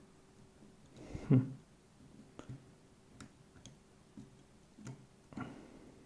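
Small, irregular metallic clicks of a disc-detainer pick turning the discs inside an Abloy Classic lock as the picker feels for gates. A louder knock comes about a second in and another near the end.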